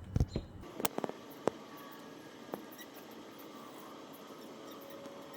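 Microphone being handled and set in place: a few sharp knocks and clicks in the first couple of seconds, then a faint steady background with a thin, quiet whine.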